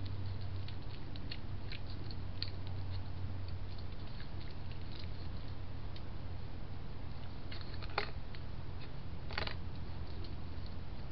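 European badgers feeding close to the camera: scattered faint crunching and clicking as they eat, with two louder sharp sounds in the later part about a second and a half apart, over a steady low hum.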